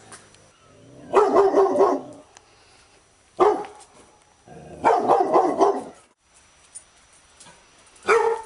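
Labrador retriever barking in bouts: a quick run of barks about a second in, a single bark, another run of barks, and one more single bark near the end.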